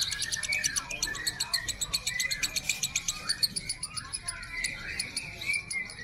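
Lutino lovebird chattering in a long, rapid, continuous trill of high ticking notes (the 'ngekek' song) with short chirps mixed in.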